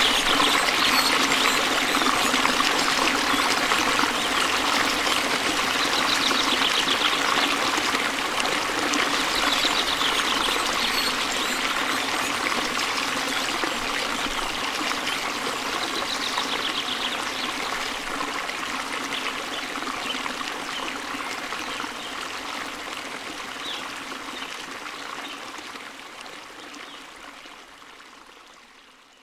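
Steady rushing and trickling of running water, fading out over the last few seconds.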